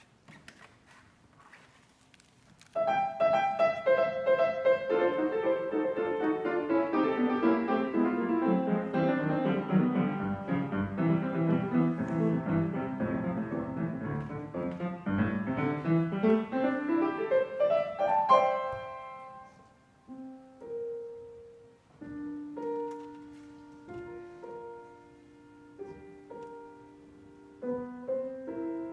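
Grand piano being played: it starts loudly about three seconds in with fast, dense figures that work down the keyboard, then a quick run that sweeps up. After that it turns to quieter, separate notes and chords that ring and die away.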